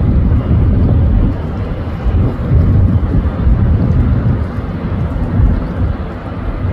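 Wind buffeting the microphone on a moving ferry's deck: a loud, uneven low rumble, with the boat's running noise beneath it.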